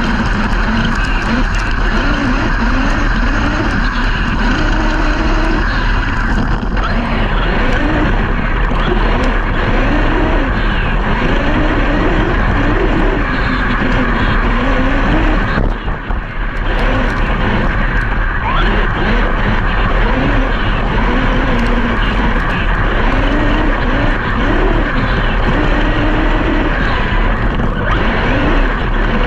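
Large-scale brushless electric RC trucks driving hard off-road: motor whine rising and falling with the throttle over a steady rumble of tyres on dirt, with a brief drop near the middle.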